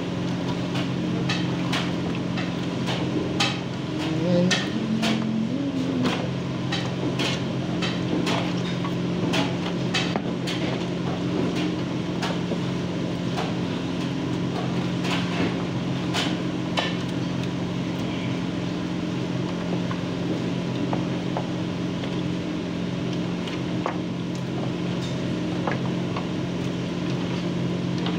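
Chicken pieces being tossed and kneaded by hand in a masala marinade in a tray: irregular sharp knocks and clicks, thickest in the first half and sparser later, over a steady low hum.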